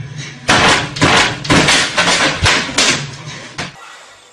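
Wooden pull-up bar rig banging hard as someone swings through fast reps on it: about seven loud knocks at roughly two a second, over a low hum that cuts off near the end.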